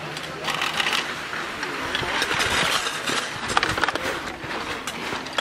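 Skis sliding and scraping over packed snow, uneven, with a few sharp scrapes.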